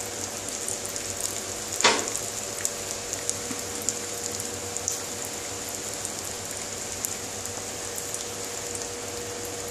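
Breadcrumb-coated fish chops sizzling steadily in hot oil in a kadai over a turned-up gas flame, their first side frying, with scattered small pops and one sharper crack about two seconds in.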